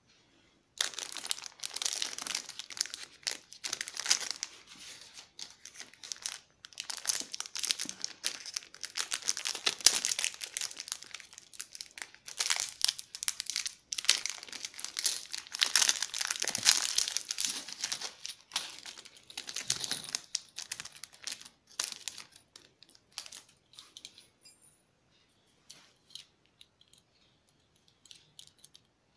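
Clear plastic packaging sleeve crinkling and rustling in repeated bursts as it is handled and cut open with scissors. The crinkling dies away after about twenty seconds, leaving only occasional faint clicks.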